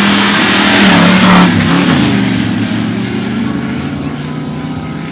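Two 4x4s, a Toyota Land Cruiser 70-series double-cab among them, pulling away hard from a drag-race start line with engines at full throttle. The engine note drops in pitch about two seconds in, and the sound fades as they race off down the strip.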